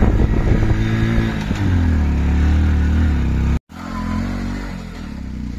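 Hero Splendor motorcycle's single-cylinder engine running while riding, heard close up from on the bike, its pitch dropping and settling about a second and a half in. The sound cuts off abruptly a little past halfway, and a quieter motorcycle engine follows.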